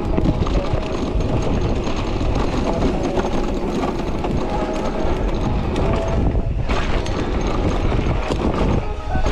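Riding noise of an electric mountain bike moving fast over rough ground: a steady rush of wind on the microphone with a constant stream of rattles and knocks from the bike and tyres.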